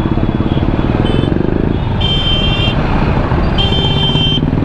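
TVS Apache RR310's single-cylinder engine running under the rider, its revs rising about a second in, while a vehicle horn honks twice in traffic, each honk under a second long.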